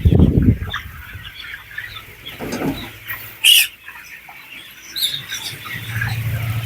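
Flock of broiler chickens chirping and clucking in a poultry house, with a low rumble of handling noise at the start and one brief loud hiss about three and a half seconds in.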